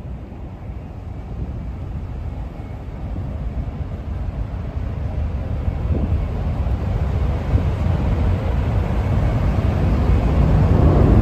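Low rumble of jet aircraft engines overhead, growing steadily louder.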